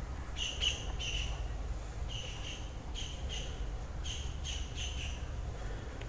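A small bird chirping repeatedly in short runs of two or three high notes, over a low steady background rumble.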